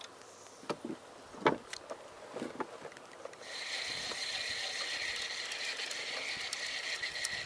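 Anyfish Zenith 4000 spinning reel being cranked: a few knocks and clicks of handling, then about three and a half seconds in a steady, high whir from the reel's gears as the line is wound in.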